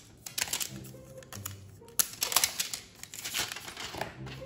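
Thin plastic protective film being peeled off a new smartphone by hand, crinkling and crackling irregularly, with the sharpest crackle about two seconds in.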